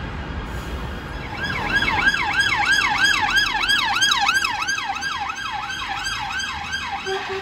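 UK police car siren on a fast yelp from a Vauxhall Astra estate on blue lights, starting about a second in and sweeping up and down about two to three times a second, then cutting off at the end. Before it, a low rumble of road traffic.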